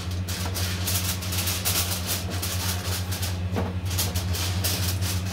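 Aluminium foil crinkling and rustling as hands press and crimp it over the rim of a pot, in quick irregular crackles. A steady low hum runs underneath.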